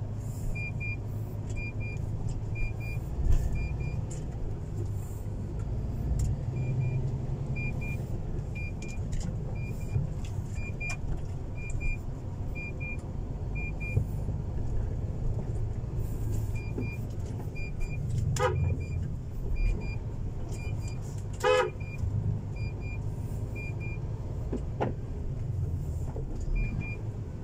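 MAN TGS 21.400 truck's six-cylinder diesel running as the truck drives slowly, heard from inside the cab. A short electronic double beep repeats steadily in runs, and two brief toots come about 18 and 21 seconds in.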